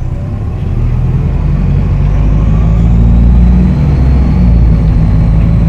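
Optare Solo SR bus engine running and growing louder as it pulls under power. A thin high turbo whistle comes in about two seconds in, rising slightly in pitch over the engine.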